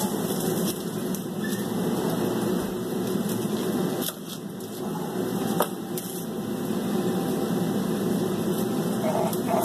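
Kitchen knife cutting through an onion on a plastic cutting board, with a few sharp taps of the blade on the board, over a steady low hum.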